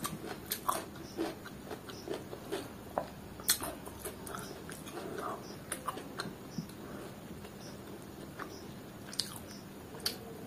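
Close-up mouth sounds of eating rice and chicken liver curry by hand: wet chewing with many short sharp clicks, thick in the first few seconds and sparser after.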